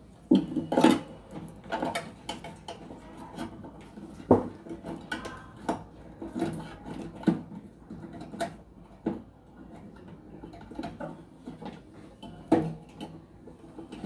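Hands fitting a part inside a microwave oven's sheet-metal chassis: irregular metallic clicks, knocks and scraping, with louder knocks about a second in, about four seconds in and near the end.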